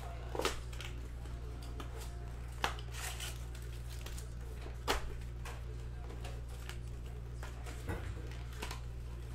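Cardboard blaster box being opened and its foil card packs handled: a few sharp crinkles and taps over a steady low hum.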